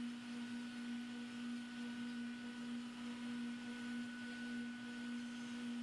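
HSD spindle of a 6090 CNC router running with a steady hum.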